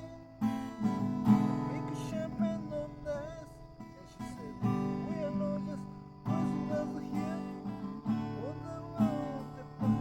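Acoustic guitar strummed in chords, the chord changing every second or two.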